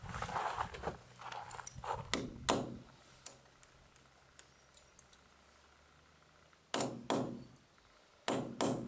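Metal hardware clinking and rustling as a 12 mm Triplex sleeve bolt and hanger are handled and set in a drilled hole in concrete. Near the end, a hammer taps the bolt four times, in two quick pairs, each strike ringing briefly.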